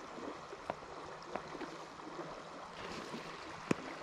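Creek water running past, a steady rushing hiss, with a few small clicks over it, the sharpest near the end.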